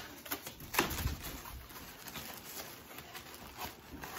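Plastic bag crinkling and foam packing blocks rubbing and knocking as a boxed figurine is pulled out, in irregular crackles with one louder knock about a second in.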